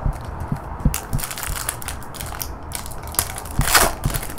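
Foil wrapper of a 2015 Bowman baseball card pack crinkling and crackling as it is handled and ripped open, with a louder burst of crackle about three and a half seconds in.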